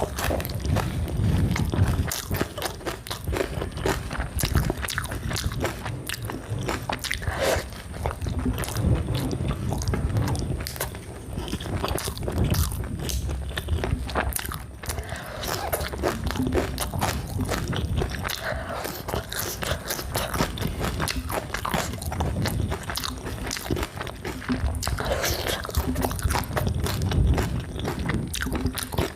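A person chewing and biting cooked liver, with wet, irregular mouth sounds and soft crunches that go on without pause.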